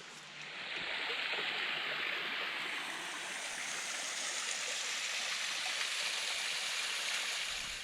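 A small waterfall, its water splashing and rushing steadily, swelling up about a second in and then holding even.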